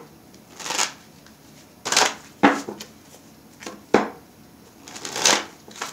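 A deck of oracle cards being shuffled by hand: about six brief rustling strokes at uneven gaps, from a deck that is really not wanting to shuffle.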